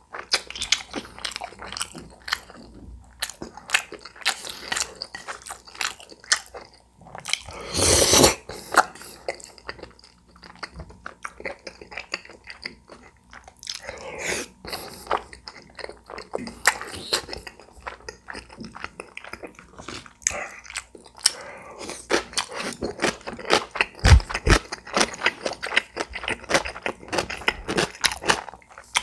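Close-miked eating sounds: biting and chewing cream tteokbokki, with many quick wet mouth clicks and one longer, louder burst about eight seconds in.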